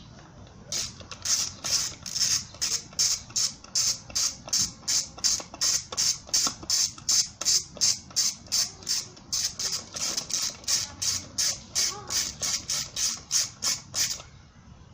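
Hand ratchet wrench worked back and forth on a fastener during engine teardown, giving a short rasping burst of clicks on each stroke, about three to four strokes a second. It starts about a second in and stops about a second before the end.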